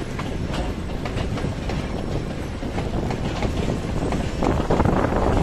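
Freight train of railway tank wagons rolling past, steel wheels clacking over rail joints over a steady rumble, swelling louder about four and a half seconds in.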